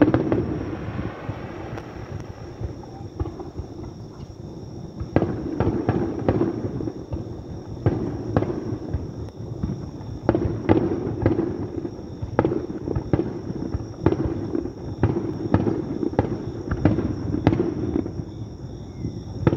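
Aerial fireworks shells bursting: a long run of sharp bangs, often two to four in quick succession, over a constant low rumble.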